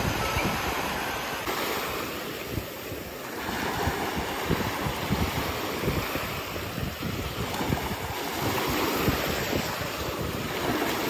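Shallow sea surf washing and foaming over sand around bare feet, a steady rush of water. Irregular wind buffeting on the phone microphone runs through it.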